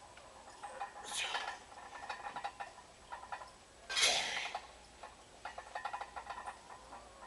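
Sharp, hissing exhalations from a lifter straining through a heavy high-rep barbell squat set: two breaths about three seconds apart, one per rep, about a second in and four seconds in. Faint light clinking sounds between them.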